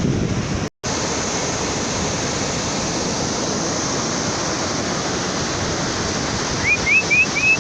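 Steady rushing wash of sea surf, cut by a brief total dropout just under a second in. Near the end come four short rising chirps in quick succession.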